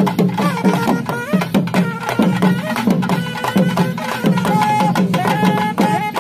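Kerala temple-festival music: hand drums beaten in a fast, steady rhythm, each stroke dropping in pitch, with wind instruments holding high notes above it.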